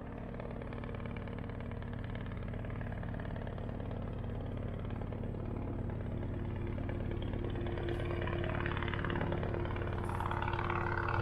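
Robinson R22 helicopter's piston engine and rotor drawing closer, a steady hum that grows steadily louder.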